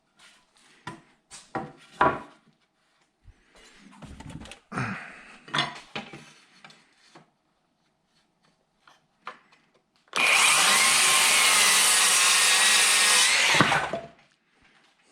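Wood and tools being handled with scattered knocks and clicks, then a power saw runs for about three and a half seconds, cutting through a board, and stops.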